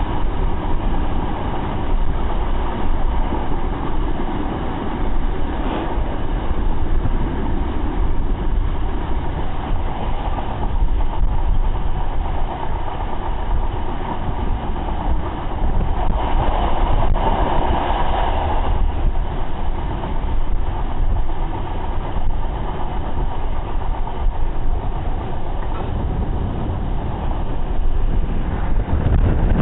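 Train running at speed, heard from inside a passenger coach: a steady low rumble of wheels on rail with wind rush, swelling briefly into a louder rush a little past halfway.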